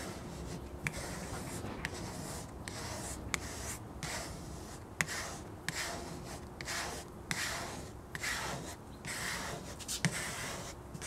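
Squeegee pushed across a wet vinyl window decal on car glass in short, firm strokes, squeezing the water-and-dish-soap solution out from behind the vinyl: a repeated rubbing swish, about one to two strokes a second.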